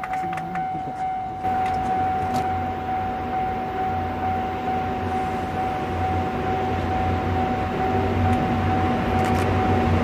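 Japanese level-crossing alarm ringing with one steady tone. Beneath it, a low rumble sets in about a second and a half in and grows gradually louder as an EF81 electric locomotive approaches at low speed.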